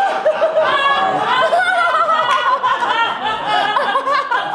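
A group of people laughing together, several voices overlapping, with a man's hearty laughter among them.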